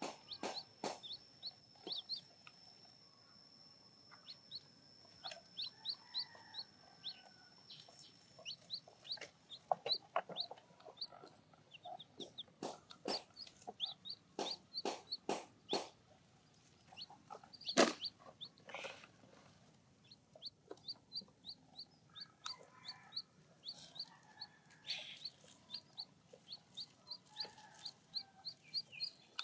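Baby chicks peeping: short, high chirps repeated over and over. Scattered knocks and clatter in between, the loudest about 18 seconds in.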